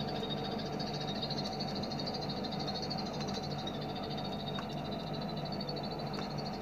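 Small songbird giving a fast, continuous rattling trill of high, rapid notes over a steady low hum.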